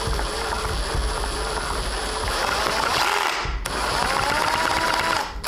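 Cordless drill spinning the 3D-printed lobe pump's rotors and timing gears through the shaft. It is a steady motor whine with mechanical noise from the turning parts. It stops briefly about three and a half seconds in, then starts up again, rising in pitch, and stops near the end.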